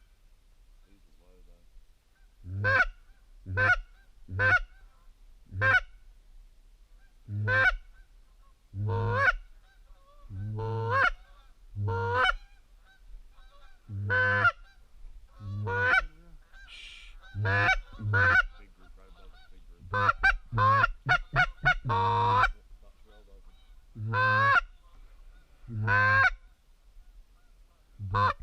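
Geese honking, unseen in fog: about twenty loud separate honks, with a quick run of short clucking honks about two-thirds of the way in.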